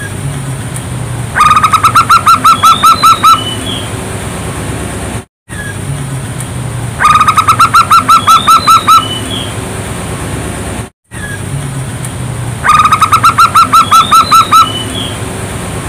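Zebra dove (perkutut) song: a quick run of about ten staccato coos lasting about two seconds, heard three times with pauses between. It is a lure song played to prompt caged zebra doves to sing.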